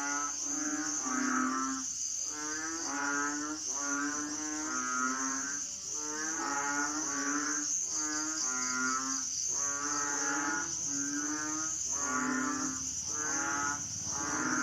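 Asian frogs calling in a chorus, one croaking call after another about once a second, each with a rippling, buzzy tone. A steady high insect trill runs underneath.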